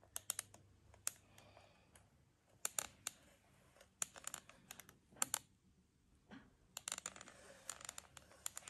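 Faint, sharp clicks and taps from small hard objects, coming in short clusters about once a second with quiet between.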